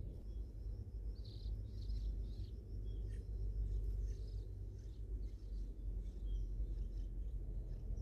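Bulbul nestlings begging with short, high-pitched chirps, busiest in the first half, as the parent arrives at the nest and they gape for food. A steady low rumble runs underneath.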